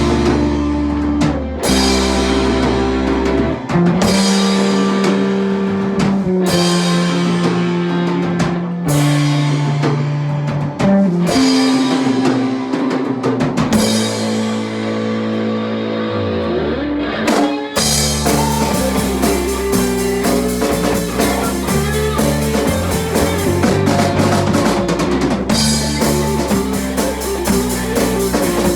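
A rock band plays with drum kit, electric guitar and bass. Long held chords are punctuated by drum hits, then a bass slide downward leads into a fuller, busier groove a little past halfway.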